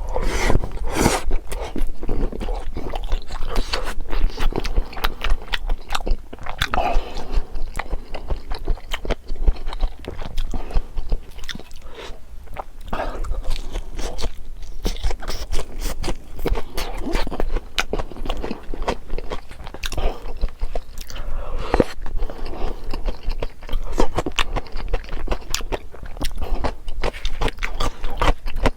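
Close-miked eating: continuous chewing and crunching with sharp, irregular bite clicks, the sound of biting into a crispy fried pork cutlet.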